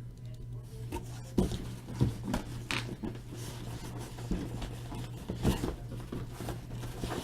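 Cardboard trading-card boxes being handled and shifted by hand: irregular rubs and light knocks, with a few sharper taps.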